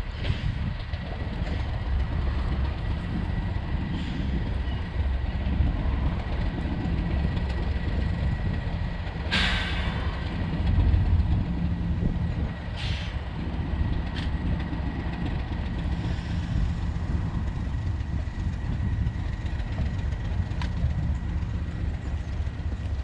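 Heritage train running with a steady low rumble, with a short burst of hiss about nine and a half seconds in and a briefer one around thirteen seconds.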